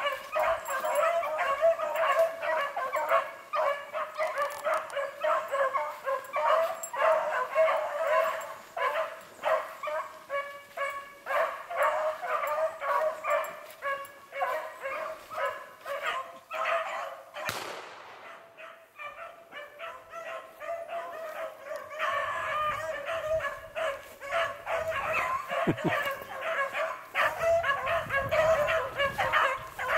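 A pack of beagles baying as they run a rabbit, many hounds' voices overlapping. The chorus thins for a few seconds a little past halfway, just after a brief rushing noise, then picks up again.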